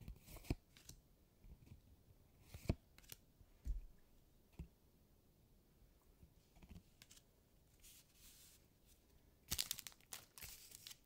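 Magic: The Gathering cards being handled: soft slides and sharp taps as the cards are flipped one at a time. About nine and a half seconds in comes a louder, denser rustle of cards as the stack is set down on the cloth playmat.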